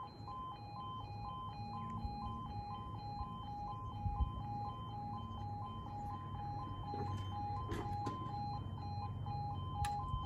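UK level crossing 'yodel' alarm sounding as the crossing activates: two tones alternating high-low about two to three times a second. A few sharp clicks and a low hum come in near the end, as the barriers begin to lower.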